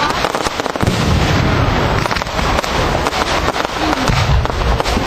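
Fireworks display: a dense, continuous crackling and popping of bursting fireworks, with deeper booms about a second in and again near the end.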